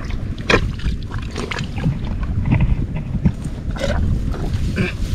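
Wind buffeting the microphone as a steady low rumble, with a few short splashes and sloshes of water from wading and hand-digging in a flooded rice paddy, the clearest about half a second in, near four seconds and near five seconds.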